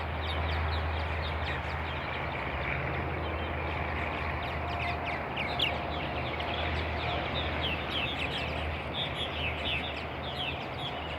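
A busy chorus of many birds chirping and calling, quick short notes overlapping throughout, over a steady low hum.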